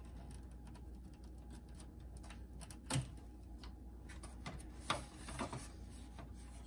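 Plastic case of an Aiwa CS-440 boombox being handled and its back cover pulled apart: scattered light clicks and rustling, with two sharper knocks about three and five seconds in.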